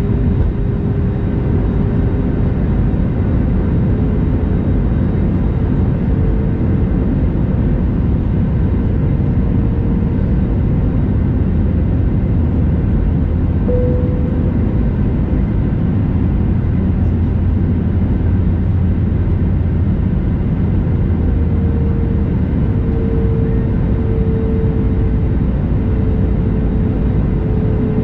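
Steady cabin noise of an Airbus A320neo in flight: a constant deep rumble of engines and airflow, with a faint humming tone that drifts slightly up and down in pitch.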